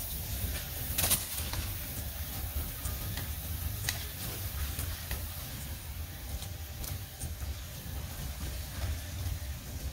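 Steady low rumble of wind on the microphone, with a few sharp clicks, the loudest about a second in.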